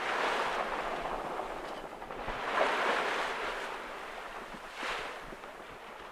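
Sea rushing and splashing along the hull of a sailing yacht under way, surging up three times, with wind.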